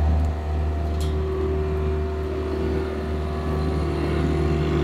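John Deere skid steer's diesel engine running steadily with a constant low hum, carrying a round hay bale on its front.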